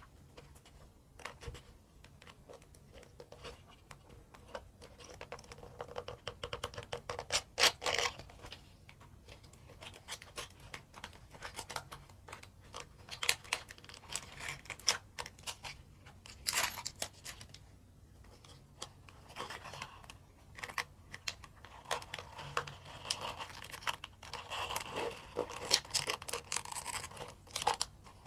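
Hands handling mini plastic building bricks and their plastic packaging: a string of sharp clicks and taps mixed with scratchy rustling and crinkling.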